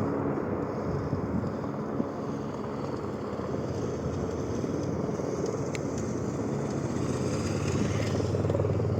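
Helicopter running steadily, its engine and rotor a continuous low noise.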